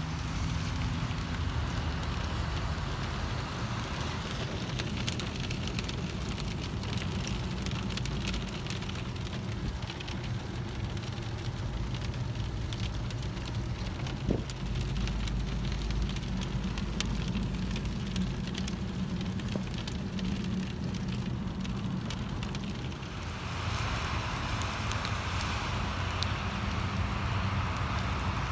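Hail pelting the car and the wet pavement through an open car window: a dense, steady patter made of many small ticks, with a brighter hiss near the end. A single sharp knock about halfway through.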